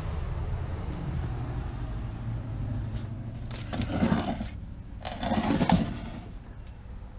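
Old wooden hand planes being handled and shifted on a wooden shelf, with two short scraping scuffs about four and five and a half seconds in, over a steady low rumble.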